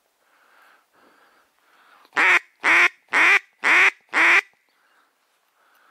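A duck quacking, five loud quacks in quick succession about half a second apart, starting about two seconds in.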